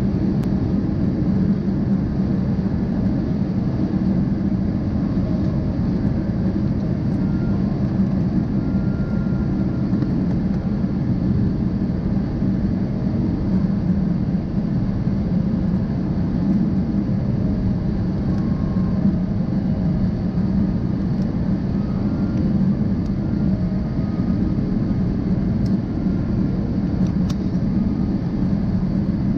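Jet airliner cabin noise heard from a window seat over the wing: a steady, even rumble of engines and airflow, strongest low down, that doesn't change.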